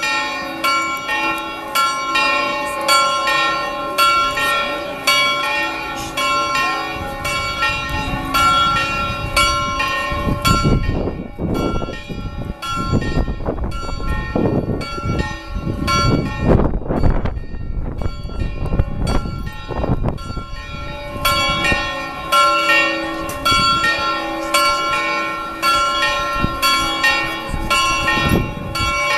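Carillon bells of the Frauenkirche's 1509 figure clock (the Männleinlaufen) chiming a quick run of struck notes that ring on between strikes. For several seconds in the middle the bells drop back under a lower, noisier sound, then come back strongly.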